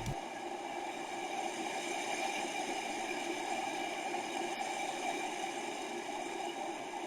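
A steady, even hiss that neither rises nor falls, with no distinct events.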